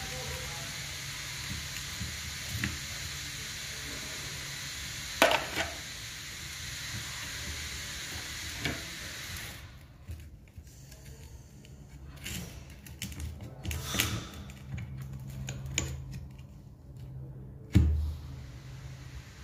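Handling noise from a disassembled electric drill: scattered clicks and knocks of its plastic housing and metal gear and armature parts being moved on a workbench, the loudest knock near the end. A steady low hum runs underneath.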